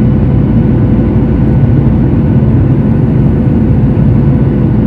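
Airliner cabin noise heard from inside the cabin during descent: a loud, steady rumble of the jet engines and airflow, with a faint steady whine above it.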